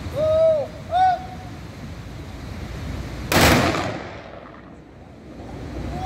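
A single ceremonial salute shot or volley a bit over three seconds in, sharp and loud, its echo dying away over about a second. Before it comes a shouted two-part call, a long falling note then a short one, and the same call starts again at the end.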